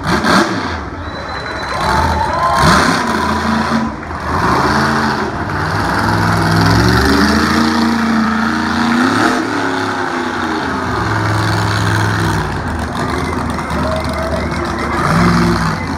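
Monster truck engine revving hard, its pitch climbing and dropping several times as the truck is driven around the dirt track.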